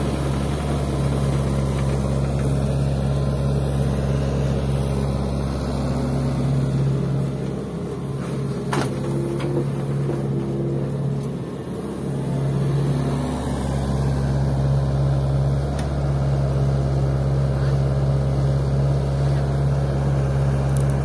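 Diesel engines of a Hitachi excavator and an Isuzu Elf dump truck running steadily. About halfway through, the engine note dips and shifts with a brief whine as the excavator swings a bucket of fill soil over the truck's bed, and a single sharp knock is heard.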